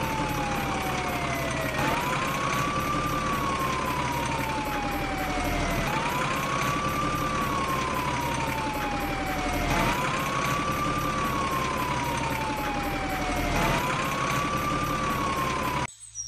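Siren sound effect: a wail that rises quickly and falls slowly, starting over about every four seconds, over a steady engine-like noise. It cuts off suddenly near the end.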